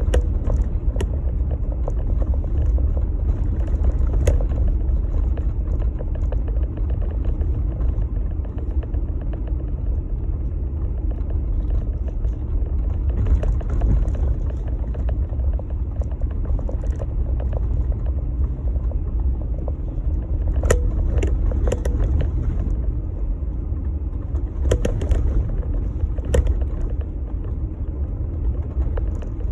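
Jeep Gladiator driving along a snowy trail: a steady low rumble of engine and tyres, with scattered knocks and clicks.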